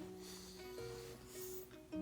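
Background music led by a plucked string instrument, a ukulele or guitar, playing a light melody of separate notes.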